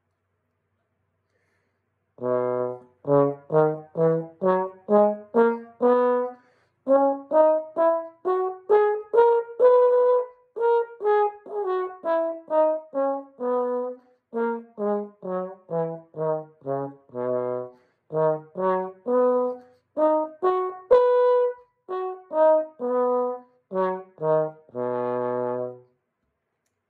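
Trombone with an F-attachment valve playing scales in separate tongued notes, stepping up into the upper register and back down several times, starting about two seconds in and ending on a longer held low note.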